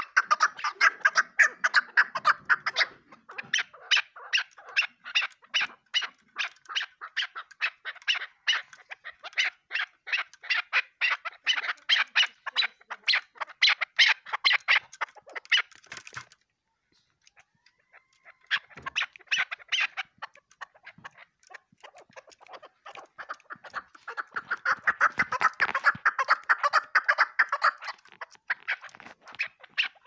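Chukar partridge calling: long runs of rapid, repeated chucking notes, several a second, broken by a pause of about two seconds past the middle before the calling starts again.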